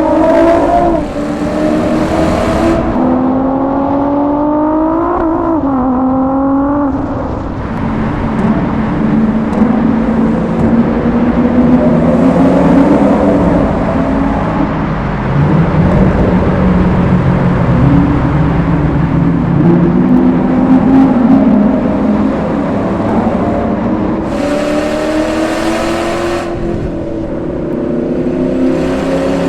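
Exhausts of two Ford GTs, a supercharged V8 and a twin-turbo V6, both on straight-pipe systems, running hard through a tunnel. The engine note climbs in several rising pulls, then gives way to a long, rougher stretch of mixed engine noise, and climbs again near the end.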